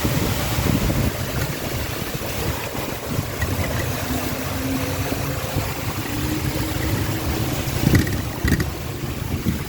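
A motor vehicle driving slowly through a flooded street: its engine running under a steady wash of water sloshing and splashing around it, with a couple of sharp knocks about eight seconds in.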